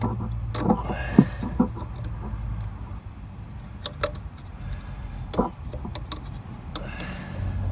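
Scattered sharp metallic clicks and clinks of a ratchet on the serpentine belt tensioner as it is pressed down to slacken the drive belt, over a steady low hum.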